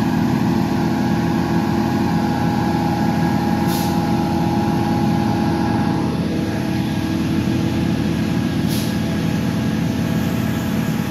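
Heavy truck engine running steadily, its pitch shifting slightly about six seconds in, with two short hisses, about four and nine seconds in.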